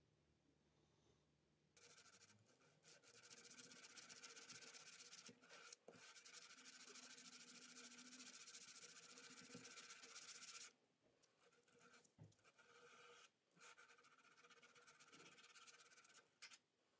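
Steel scissor blade rubbed on wet sandpaper, a faint scraping. It starts about two seconds in, runs steadily until about ten seconds in, then breaks into shorter strokes with gaps.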